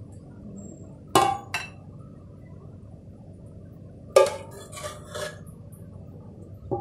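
A metal ladle clinking against the rims of glass and stainless bowls while ladling liquid agar jelly: two clinks about a second in, a sharp clink about four seconds in followed by a few lighter taps, and a last short clink near the end.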